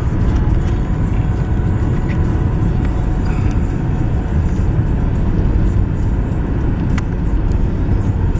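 Steady low road and engine noise inside a moving car's cabin, with the tyres running on wet pavement. A single faint click about seven seconds in.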